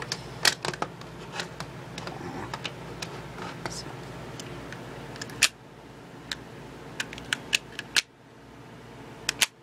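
Plastic parts of a spring airsoft pistol being handled and fitted back together: scattered, irregular clicks and snaps.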